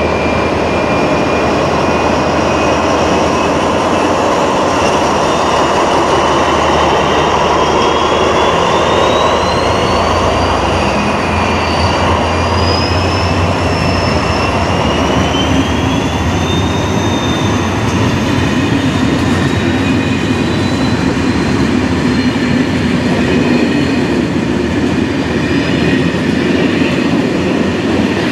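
Two SNCF BB 67400 diesel locomotives in multiple working, running under power as they haul a Corail passenger train away, with a steady low engine hum and a whine that rises in pitch partway through. Then the coaches roll past with a continuous rumble of wheels on the rails.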